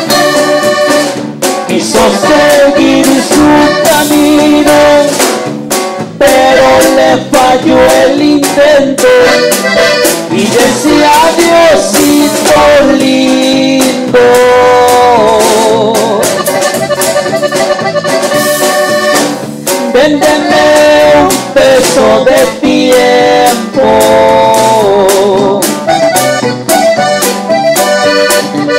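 Live regional Mexican band music: an accordion carries the melody over drum kit and keyboard, with a man singing into a microphone in places.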